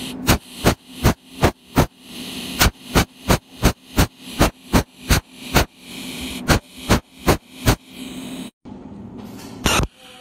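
Cold welding machine firing short pulses through its tungsten electrode as filler wire is added to a spot weld: a regular run of sharp electric snaps, about three a second, each preceded by a rising buzz, with brief pauses. The pulses stop about eight and a half seconds in, and one more snap comes near the end.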